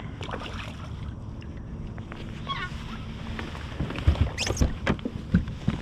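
A hooked striped bass being reeled to the side of a kayak over a steady low rumble of water against the hull. From about four seconds in there is a run of sharp knocks and splashes as the fish comes up near the boat.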